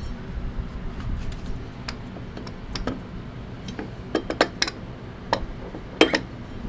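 Metal clinks and taps as a Polaris CVT primary clutch is slid onto its tapered shaft and seated: a dozen or so scattered sharp clicks, the loudest about four and a half and six seconds in, over a low steady hum.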